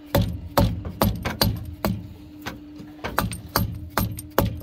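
Hammer tapping on a hydraulic line fitting to knock it loose from the hydraulic pump of a John Deere 270C excavator: about a dozen sharp strikes at an uneven two or three a second, over a faint steady hum.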